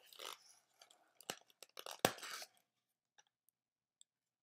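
Packaging crackling and crunching as an item is pulled out of its styrofoam-packed box, with two sharp snaps, one just over a second in and a louder one about two seconds in.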